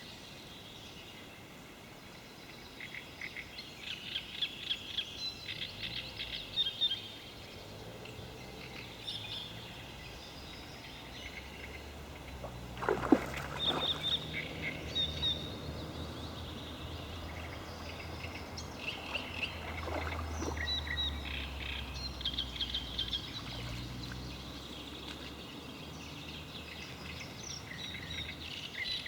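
Several songbirds chirping and singing. A low rumble runs through the middle stretch, and two brief louder sounds come about halfway through and again some seconds later.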